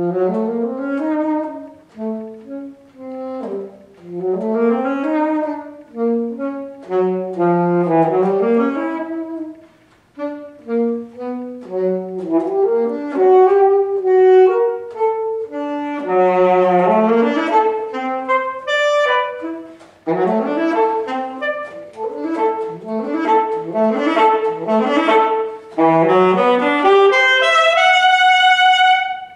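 Unaccompanied saxophone playing quick rising runs in short phrases with brief breaks between them. It ends on a long held high note that stops abruptly.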